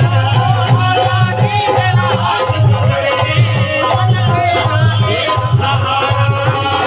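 Hindi devotional bhajan music: a gliding melodic line over a steady drum beat.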